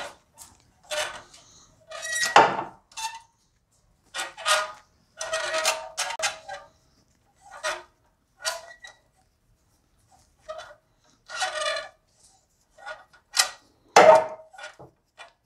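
Improvised plug spanner (a steel rod through a bike spark-plug spanner) being turned to tighten a spark plug in a Maruti Alto 800 engine: short, irregular bursts of metal scraping and grating with some clinks, about a dozen in all.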